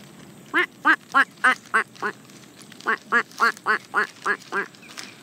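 Mallard hen quacking in two runs of loud quacks, about three a second, six in the first run and seven in the second after a short pause.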